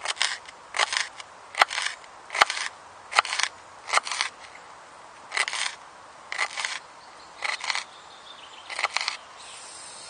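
Thick-bladed Richard Kapeller survival knife chopping onion on a wooden cutting board: about ten strokes, roughly one a second, with a short pause midway and two sharper clicks about two seconds in.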